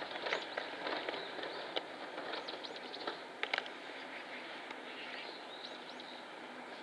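Oriental greenfinches giving short, high, chirping calls over and over, with a few sharp clicks in between and a steady background hiss.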